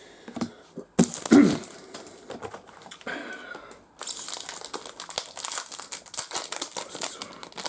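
Foil trading-card pack wrapper being torn open and crinkled by hand. There is a sharp rip about a second in, then dense, rapid crinkling from about four seconds on.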